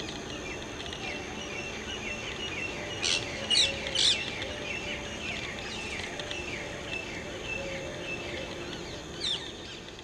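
Small birds chirping repeatedly, with a few loud, sharp calls about three to four seconds in and again near the end. A low note repeats steadily underneath.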